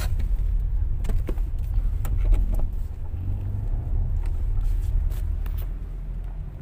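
Low road rumble inside a moving Honda City's cabin, with several sharp knocks from underneath as it goes over rough road. The knocks are the clunk over bumps that the mechanic traces to a worn bushing inside the steering rack and pinion.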